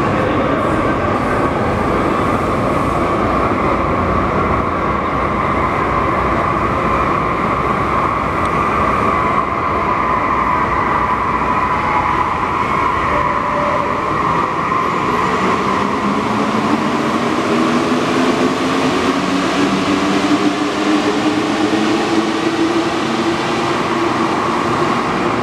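Alstom NS-93 rubber-tyred metro train running along the platform with a loud, steady din. From a little past halfway, its traction motors whine steadily upward in pitch as it gathers speed.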